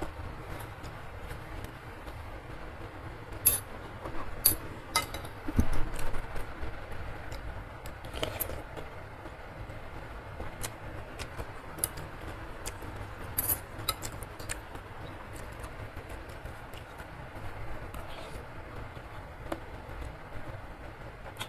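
Metal spoon and fork clinking against a ceramic bowl of noodle soup: scattered sharp clinks, bunched about three to six seconds in and again around eight and thirteen seconds, over a steady low background hiss.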